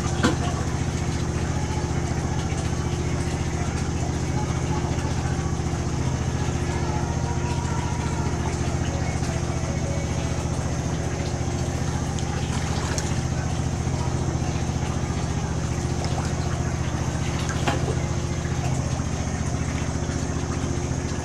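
Engine running steadily at idle: a low, even drone with a thin high whine above it and a few faint clicks.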